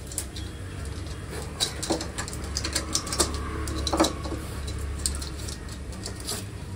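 A pug snuffling and pawing at a tennis ball on a concrete floor: scattered short clicks and scrapes, with a few brief pitched noises about two, three and four seconds in.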